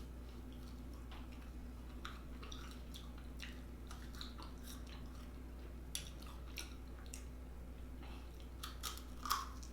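A person chewing food close to the microphone: soft, wet mouth clicks and smacks at irregular intervals, with a louder smack a little before the end. A steady low hum runs underneath.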